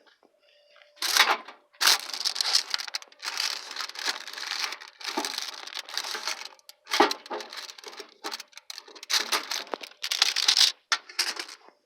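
Irregular crinkling and rustling, loud and broken by short pauses, starting about a second in.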